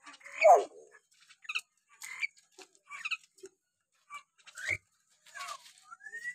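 Hill myna calling: a string of short squawks, clicks and whistled notes, the loudest a falling squawk about half a second in, with a rising whistle near the end.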